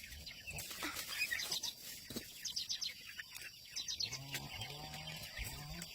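Small birds chirping in short, quick runs, with a low drawn-out pitched call in the second half.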